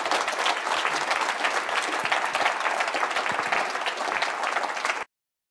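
Audience applauding steadily in a lecture hall, cut off abruptly about five seconds in.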